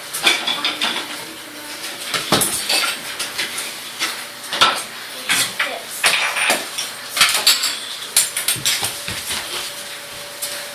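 Dishes and cutlery clinking and clattering as they are handled, in a string of irregular sharp knocks.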